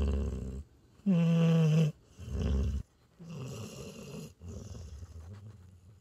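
Border collie–Australian shepherd mix dog snoring in its sleep: a rasping breath, then one steady-pitched snore a second in, another rasping breath, and softer, quieter breathing in the second half.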